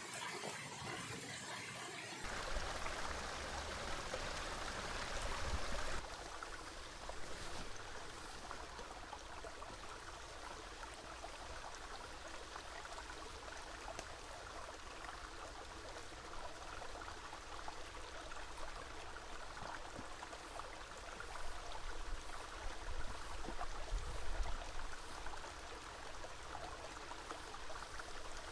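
A small river running steadily, an even rush of water; the sound changes abruptly about two and six seconds in, with a low rumble underneath from about two seconds on.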